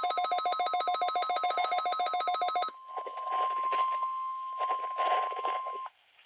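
A weather alert radio's own alarm beeping, a fast-pulsing electronic beep that cuts off about two and a half seconds in. Then the NOAA Weather Radio warning alarm tone comes through the radio's speaker, a single steady tone with irregular noise over it, ending shortly before the close.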